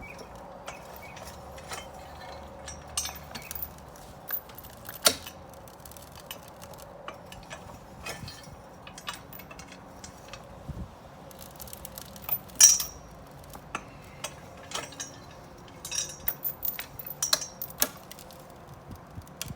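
Scattered metallic clinks and knocks at irregular intervals over a faint low hum, with the loudest clank about twelve and a half seconds in and a quick run of clinks near the end.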